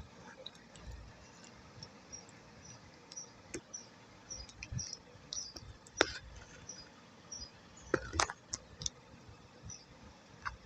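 Thick wet clay paste being stirred and pressed, giving many small sticky clicks and crackles, with a few sharper clicks about six seconds in and around eight seconds.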